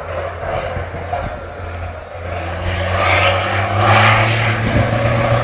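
1000 bhp turbodiesel race truck engine under power as the truck comes through a corner. It grows louder about two seconds in, and its low, steady note rises slightly towards the end.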